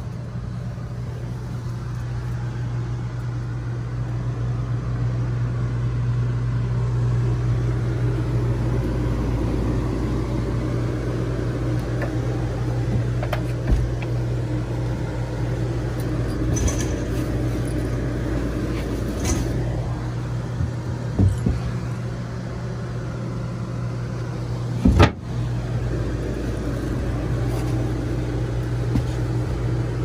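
Steady low hum of a running machine or engine, with a few light knocks and one sharp knock about 25 seconds in.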